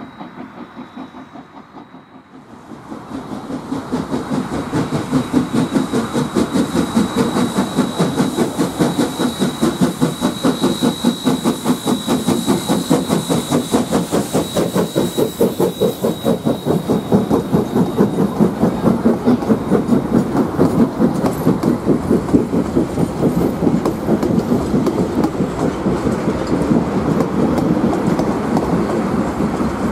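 NZR A class 4-6-2 steam locomotive A 428 working past at close range, its exhaust chuffing in a fast, even rhythm. It is distant and quieter at first, then loud from about three seconds in. Near the end the carriages roll by, wheels clattering on the rails.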